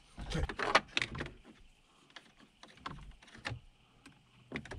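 Clicks and rustles of plastic dash trim and wiring being handled. A busy cluster comes in the first second or so, then single clicks follow every half second or so.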